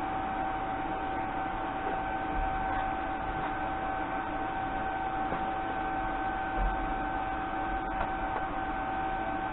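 Steady electrical hum with a constant high whine over a faint hiss, and a faint click about eight seconds in.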